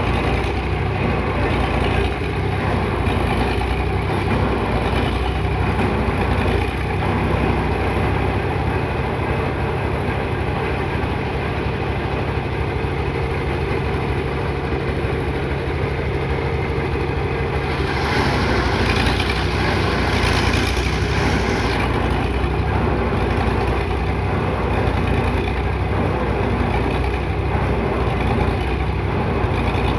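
Engine of heavy construction machinery running steadily. About eighteen seconds in, a louder rush of hissing noise lasts some four seconds.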